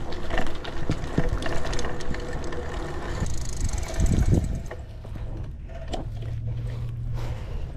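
Bicycle being ridden, its rear hub ticking rapidly as it coasts, over road noise, with a couple of louder bumps, one about halfway through and one at the very end.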